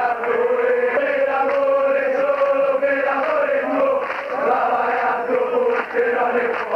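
Football ultras singing a chant together, many male voices holding long notes in unison.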